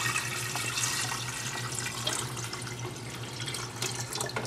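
Water poured in a steady stream from a glass carafe into an empty stainless-steel electric kettle.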